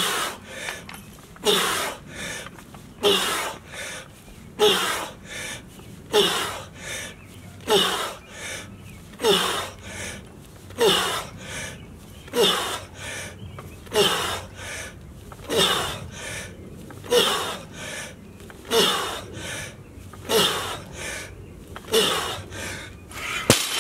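A man's heavy breathing during a set of barbell thrusters: a hard grunting exhale that falls in pitch, one per rep, about every second and a half, around fifteen in all. Near the end a sudden louder noise as the barbell is dropped onto the concrete.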